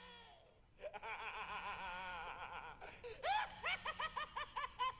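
A maniacal, Joker-style cartoon laugh: a drawn-out wavering cackle that breaks about three seconds in into quick ha-ha-ha pulses, about four a second. Short bursts of buzzing static recur about every two seconds over it.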